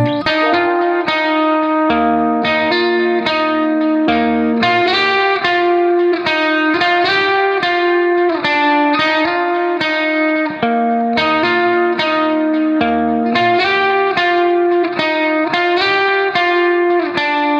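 Background music: a plucked guitar melody with a bass line in a steady, repeating rhythm.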